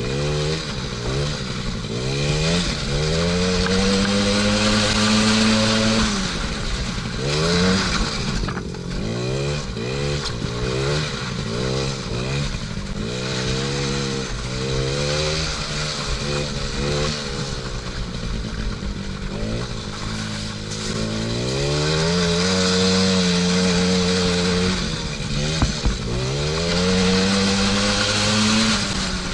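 50cc two-stroke engine of a small kids' ATV (a Chinese clone of the Suzuki 'Noppeli') revving up and down again and again as it is ridden, with short runs held at high revs and quicker bursts of throttle in between.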